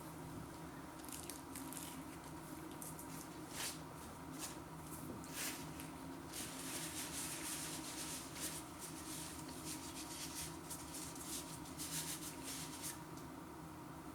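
Faint crackling and rustling of a flaky-pastry cheese and onion pasty being broken and eaten, in scattered small crackles that cluster in the middle, over a faint steady hum.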